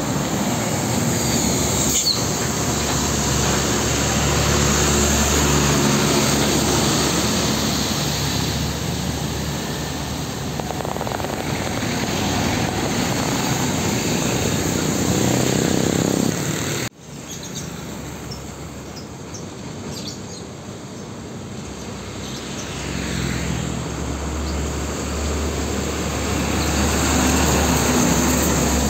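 Diesel trucks driving past, their engine note swelling and fading as each passes. The sound cuts off abruptly about 17 seconds in, then comes back quieter and builds up again toward the end.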